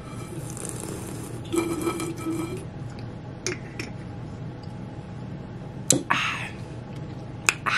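Drinking apple juice from a glass bottle: liquid sloshing and gulping for the first two and a half seconds. Then a few light clicks and knocks, and a short breathy sound about six seconds in.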